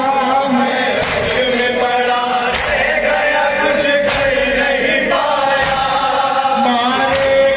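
Male voices chanting a noha, a Shia mourning lament, together in a sustained melodic line. Beneath it, hands slap on chests in matam, one beat about every one and a half seconds.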